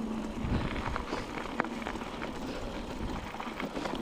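Irregular footsteps and scuffs of a hiker walking on a rocky trail, with gusts of wind rumbling on the microphone.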